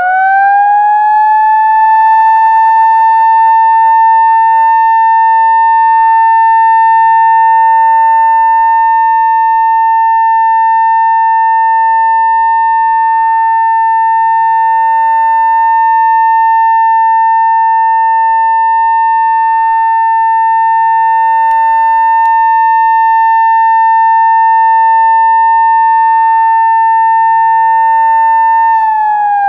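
Electronic siren of a municipal disaster-prevention radio loudspeaker, sounded as a year-end fire-prevention warning. It finishes winding up in the first two seconds, holds one steady loud tone, and starts winding down in pitch near the end.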